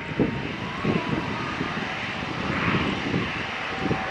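A CASA/IPTN NC-212 Aviocar taxiing, its twin turboprop engines running steadily with a faint whine, over an uneven low rumble.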